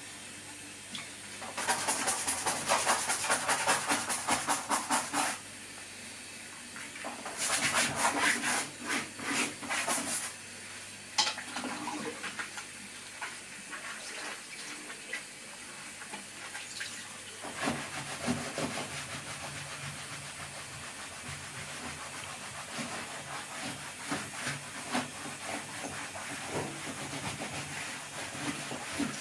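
A dirty car trim piece is scrubbed hard with a cleaning cloth in two bursts of rapid strokes in the first ten seconds, then rubbed more lightly now and then, over a steady hiss.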